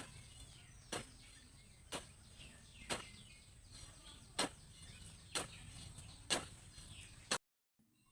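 A hand tool striking repeatedly, roughly once a second, in a steady working rhythm, the kind of blow made when hoeing or chopping on a farm. The sound cuts off abruptly near the end.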